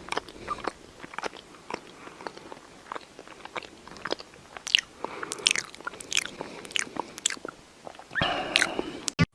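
Crunchy chewing: many sharp, irregular crunches, with a brief louder, higher sound near the end.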